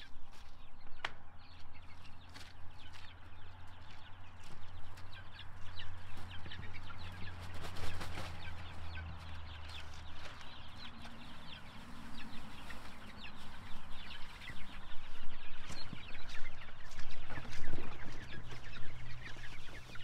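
A flock of young egg-laying chickens cheeping and clucking, many short high calls overlapping, louder in the second half. A steady low hum runs under the first half.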